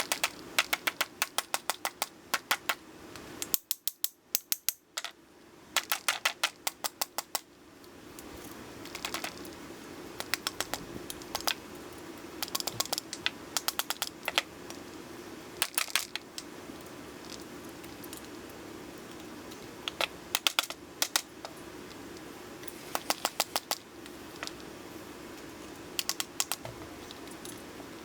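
Bursts of light, rapid metal taps, several a second with short pauses between bursts: a hammer tapping a pin punch to drive a retaining pin out of a cast bench vise. A faint steady hum runs underneath.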